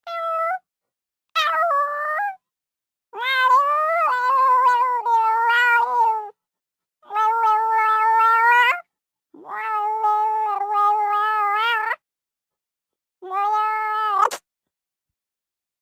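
Cat in heat calling: six drawn-out, wavering meows, the longest about three seconds, separated by short gaps.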